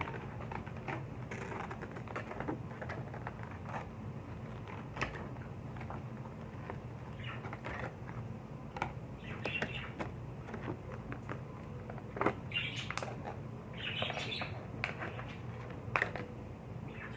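Retail packaging of a USB-C cable being handled and opened: scattered clicks, scratches and short crinkles of packaging, over a low steady hum.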